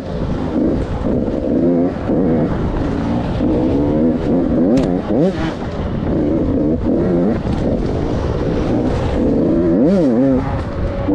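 KTM 85 two-stroke dirt bike engine revving up and down constantly as the rider works the throttle over a rough trail, with quick sharp blips of revs about five seconds in and again near the end.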